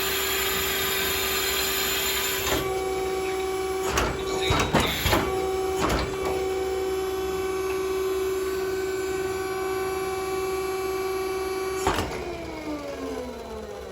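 A small electric motor running with a steady hum, with a few sharp clicks about four to six seconds in. It is switched off near the end, its pitch falling as it spins down.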